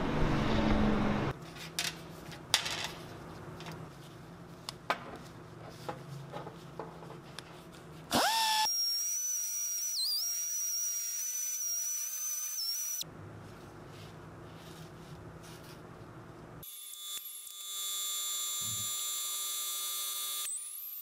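A high-speed rotary tool fitted with a conical burr, deburring the bore of a cast bronze skateboard wheel. It spins up with a sharply rising whine about eight seconds in and holds a steady high pitch for about five seconds. Between quieter stretches of noise and scattered clicks, a second steady power-tool whine runs through the last few seconds.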